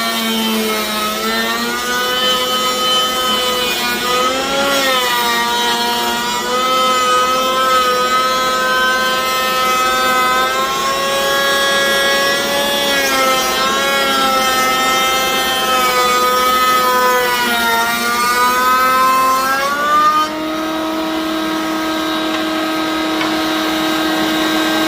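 Table-mounted router running with its bit cutting dados in wood: the motor whine sags and wavers in pitch under the load of the cut. About twenty seconds in, the whine climbs a little, gets a bit quieter and holds steady as the router spins freely once the cut is done.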